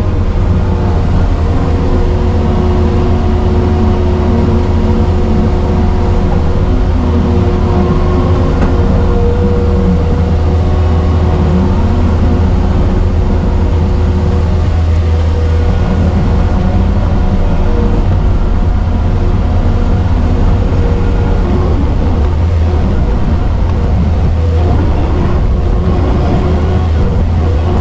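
Heavy-equipment diesel engine running steadily under work, with a strong low drone and a pitch that wavers slightly as the machine works.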